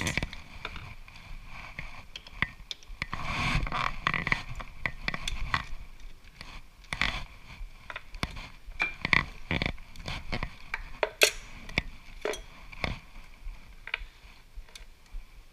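Metal handling noises at a stopped metal lathe: irregular clicks and knocks, with a scraping stretch a few seconds in, as an aluminium workpiece is taken out of the three-jaw chuck and set down with tools on the lathe's headstock.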